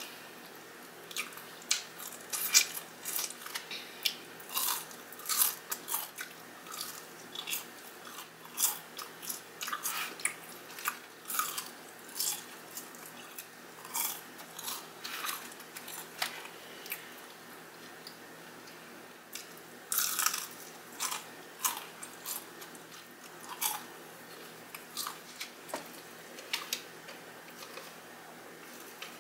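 Close-up biting and chewing of crispy Popeyes fried chicken: a dense run of sharp, crisp crunches and crackles of the breading, with a pause of a few seconds just past the middle before the crunching picks up again.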